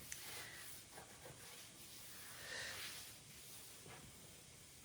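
Faint rubbing of a cleaning rag wiped across a refrigerator shelf, with a few light knocks.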